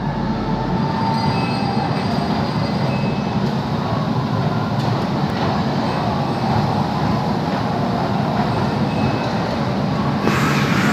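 Steady cabin rumble of an airliner in flight, a dense low roar of engines and airflow with a hiss over it; a brighter, higher layer joins about ten seconds in.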